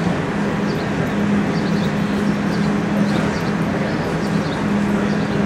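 Steady droning room noise of a large indoor show arena, with a constant low hum through it and faint short high chirps recurring every second or so.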